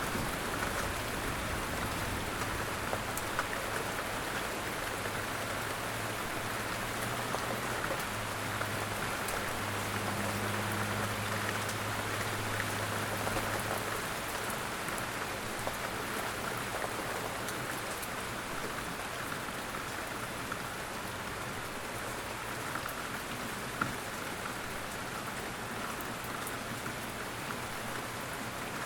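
Steady rain falling on a surface, with scattered individual drop ticks and one sharper tick near the end. A faint low hum underlies the first half and fades out about halfway.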